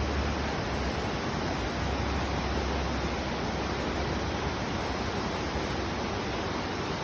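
Steady rushing noise, with a low rumble during the first three or four seconds.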